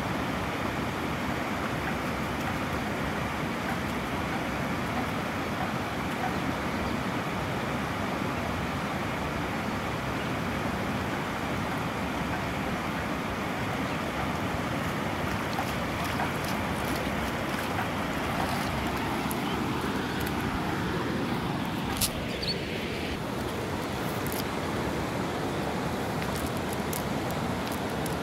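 Steady rush of water pouring over a low concrete weir, with a single sharp click about three quarters of the way through.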